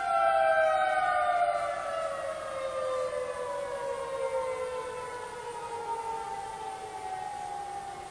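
Outdoor tornado warning siren winding down at the end of its test cycle: one steady wailing tone slowly falling in pitch and fading.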